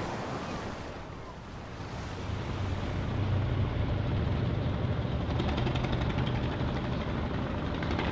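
Boat engine running with a steady low rumble and a haze of water and wind noise, growing louder about two seconds in.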